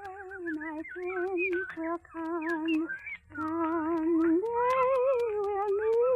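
A woman's voice singing a wordless melody with vibrato: a run of short held notes, a brief break, then a higher note that rises and is held. The crackle of an old recording runs under it.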